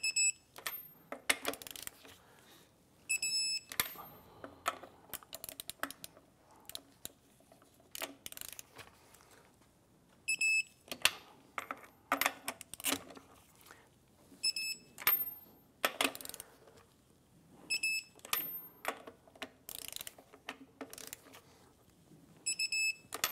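Click-type torque wrench on lug nuts: bursts of ratcheting clicks, with a sharp ringing click at intervals as each nut reaches the 140 foot-pound setting, nut after nut around the wheel.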